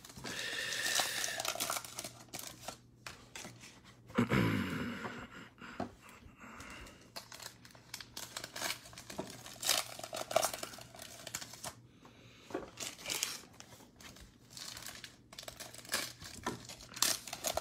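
Foil trading-card pack wrapper crinkling and a stack of cards being handled and slid, with scattered small clicks. A short low vocal sound about four seconds in is the loudest moment.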